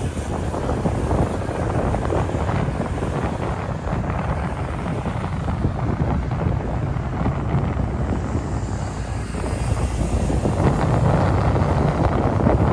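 Wind buffeting the microphone outdoors: a low, rumbling noise that grows louder near the end.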